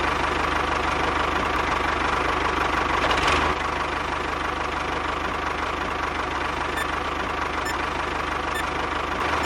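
Small engine idling steadily with a fast, even knocking beat; it drops a little in level about three and a half seconds in.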